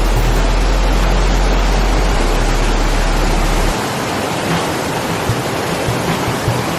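Steady loud roar of a waterfall: rushing, falling water. Underneath, a low deep tone changes pitch once and stops a little past halfway.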